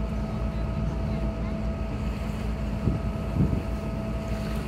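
Harbour ferry's engine running steadily with a low rumble and a constant hum, with wind buffeting the microphone as the boat moves across the harbour.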